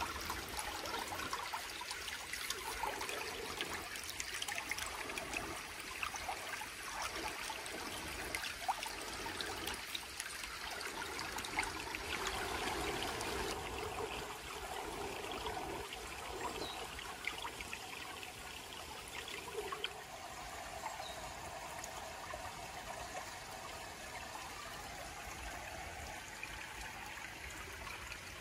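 Shallow forest stream trickling steadily over stones and gravel.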